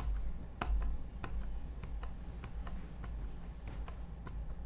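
Computer keyboard keys pressed in a run of irregular clicks, a few a second, stepping a chess game forward move by move.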